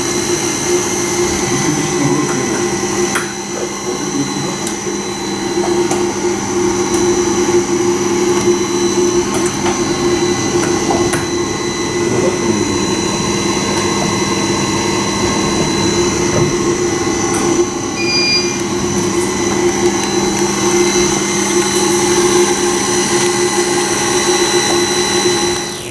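Steady hum and whine of a running Okuma servo drive test bench, its servo motors and drive electronics holding several steady high tones over a noisy machine hum, with faint light clicks. A short electronic beep sounds about eighteen seconds in.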